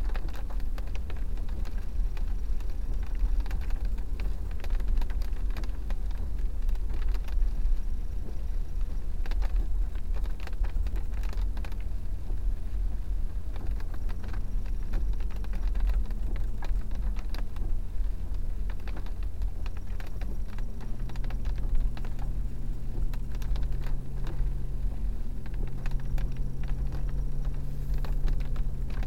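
Car driving slowly over a rough, wet dirt track, heard from inside the cabin: a deep rumble with a constant patter of small clicks and rattles. About two-thirds of the way through, a steady engine hum joins in.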